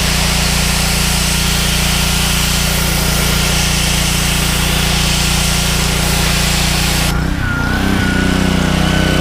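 Gas pressure washer: its engine runs steadily while the wand sprays water with a hiss. About seven seconds in the spray cuts off and the engine keeps running, with a thin whine.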